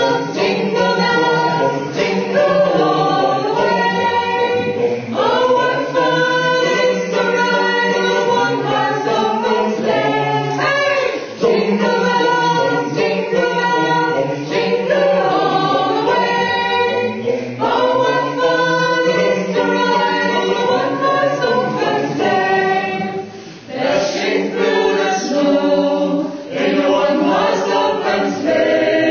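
A choir singing a cappella in several parts: held chords, with short breaks between phrases, a few of them near the end.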